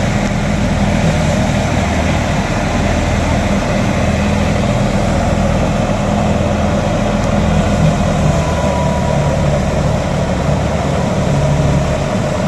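Ghazi tractor engine running steadily under load, driving a Diamond wheat thresher as wheat sheaves are fed into it: a continuous, even machine drone.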